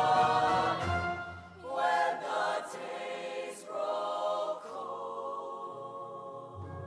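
Show choir singing sustained chords with live band accompaniment, the voices fading after a few seconds to softer held chords.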